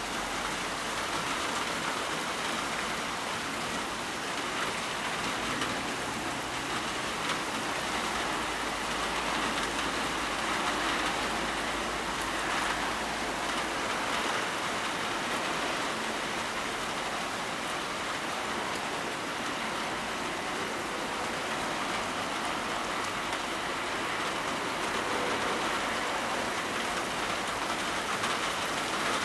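Downpour of rain falling steadily and splashing on surfaces, an even hiss throughout.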